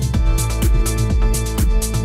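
Electronic background music with a steady, fast beat.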